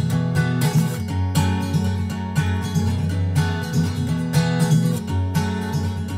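Background music: a strummed acoustic guitar instrumental with regular strokes.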